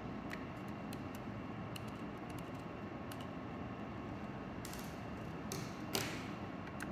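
Scattered light clicks and a few short scrapes near the end, the loudest about six seconds in, from small hand tools and the plastic casing of a handheld GPS unit being worked on, over a steady background hiss.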